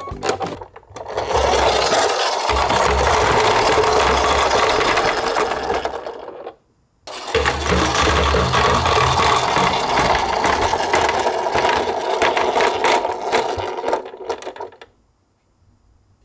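Toy garbage truck whirring with a dense gear rattle and a low rolling rumble as it runs on a wooden ramp, in two long runs of several seconds each, each stopping suddenly.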